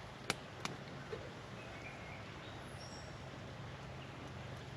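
Quiet outdoor background with two sharp clicks in the first second and a faint bird chirp around the middle.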